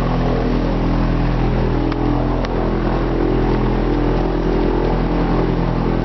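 Small light aircraft's engine running steadily at an even speed, heard from inside the cockpit.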